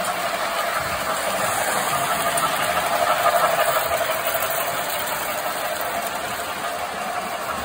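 1920s tinplate toy freight train running past on metal track: a steady clattering rumble of wheels on rail and running gear, loudest about three seconds in as the cars pass close, then easing off.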